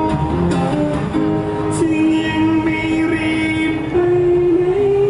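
Male voice singing long held notes over an acoustic guitar in a live performance. One note is held for a couple of seconds, then steps up near the end.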